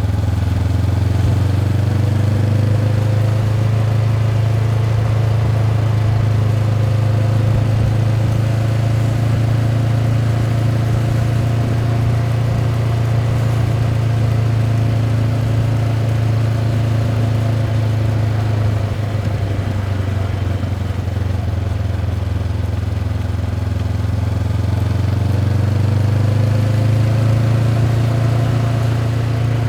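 Honda CB500X's 471 cc parallel-twin engine through its stock exhaust, pulling steadily while riding. The engine note holds at a fairly even pitch, eases off about two-thirds through and climbs again near the end.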